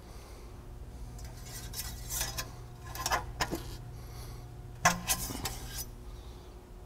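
A metal hydraulic dipstick clinking and scraping in its tube while it is handled and wiped with a cloth rag: short spells of clicks and rubbing about two, three and five seconds in, over a faint steady hum.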